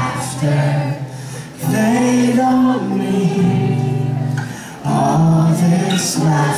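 Steel-string acoustic guitar strummed with a man singing long, held notes into a microphone: a live solo song.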